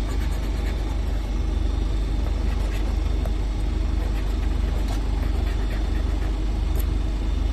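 A coin scraping the latex off a scratch-off lottery ticket, faint against a steady low engine rumble that is the loudest sound.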